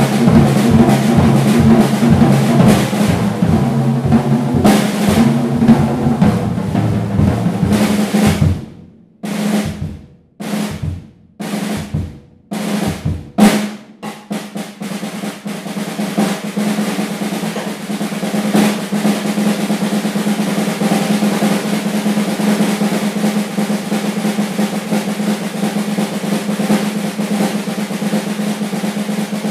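Acoustic drum kit played hard: a busy pattern with bass drum for the first eight seconds, a handful of separate accented hits with gaps between them, then from about fourteen seconds a continuous snare drum roll with a steady ring in it.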